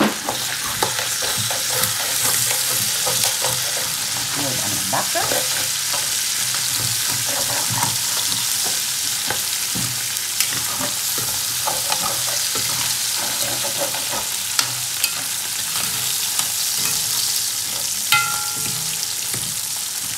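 Oil sizzling steadily in a pan as dried catfish fries with onions and chili pepper, with a spoon stirring and scraping against the pan in many short clicks. A brief metallic ring near the end.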